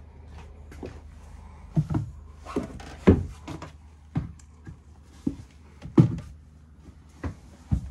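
Footsteps and knocks on the wooden companionway steps and cabin floor of a small sailing yacht: about ten irregular thuds, with a faint steady low hum underneath.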